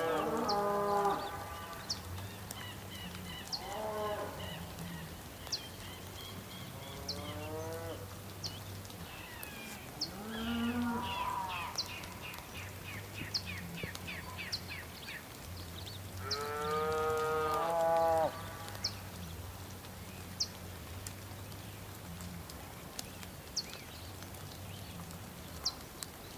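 Cattle mooing outdoors: about five drawn-out moos, the longest and loudest about two-thirds of the way through. Birds chirp in short runs and sharp ticks in the background over a steady low hum.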